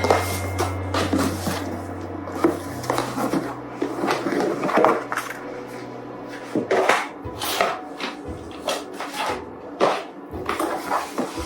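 Soft background music over the handling sounds of a gift box being opened: cardboard knocking, and rustling and crinkling of paper in short bursts.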